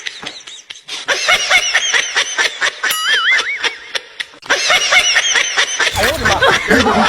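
Comedy ringtone of high-pitched laughter in rapid repeated pulses, with a wavering whistle-like tone about three seconds in; music with a low bass comes in near the end.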